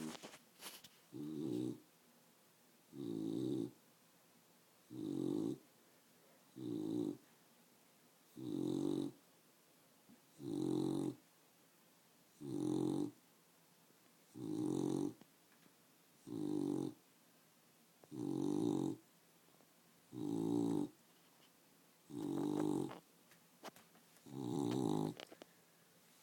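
A dog snoring while awake: a steady rhythm of about thirteen rasping snores, one roughly every two seconds, each under a second long. The owner wonders whether the dog's overbite is the cause.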